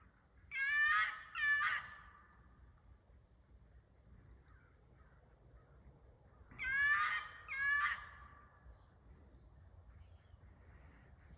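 Unidentified animal calling: two pairs of short, harsh, pitched screams, one pair about a second in and another about seven seconds in. A steady high insect buzz runs underneath.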